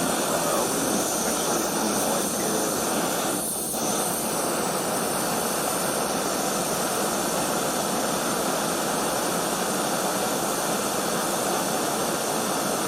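Snow Peak GigaPower isobutane canister stove burning at full flame under a titanium pot of water, a steady loud hiss with one brief dip about three and a half seconds in; the water is coming up to a rolling boil.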